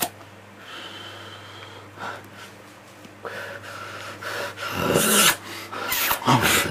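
A person's breathy puffs and snorts, miming drawing on a cigarette and blowing out smoke. Faint at first, then louder in the last two seconds.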